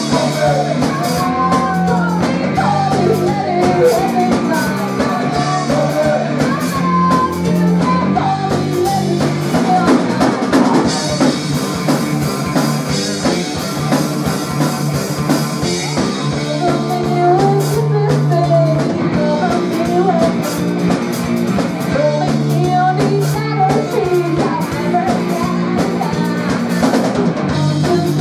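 Live rock band playing: a woman sings lead over electric guitar, electric bass and a drum kit with steady beats. The singing breaks off for a few seconds about halfway through while the band plays on with bright cymbals, then comes back.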